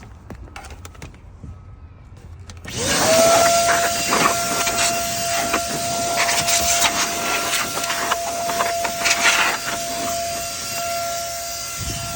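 Vacuum cleaner switched on about three seconds in, its motor whine rising quickly to a steady pitch, then running with crackles and rattles of dog hair, hay and debris being sucked up.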